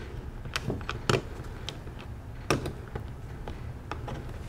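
A few irregular light clicks and taps as a dishwasher's kick plate is fitted at its base and its screw started by hand. The sharpest clicks come about a second in and about two and a half seconds in.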